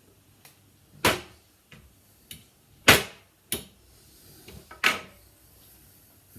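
Sharp clicks and knocks from handling and fitting the lightsaber hilt's battery pack: four louder ones, the loudest about three seconds in, with a few softer taps between.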